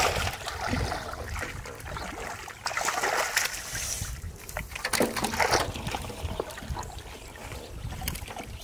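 Shallow muddy water splashing and sloshing in irregular bursts as someone wades and scoops through it with hands, a bowl and a plastic basket. The loudest splashes come about three and five seconds in.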